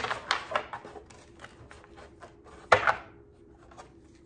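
A deck of tarot cards being hand-shuffled: a quick run of soft card taps and flicks in the first second, then one louder slap of cards nearly three seconds in. The cards are new and stiff, not yet broken in.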